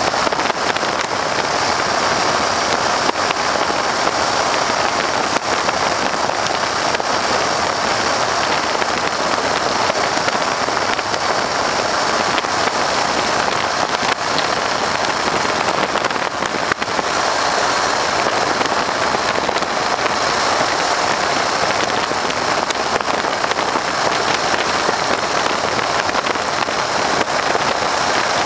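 Steady wind rush blasting the microphone together with the drone of a Stearman biplane's radial engine in cruising flight, as heard from the open cockpit.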